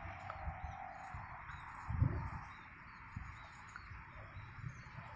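Outdoor ambience: wind buffeting the microphone in uneven gusts, strongest about two seconds in, over a steady hiss, with faint bird chirps.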